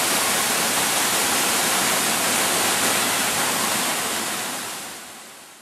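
Steady static hiss, fading out over about the last second.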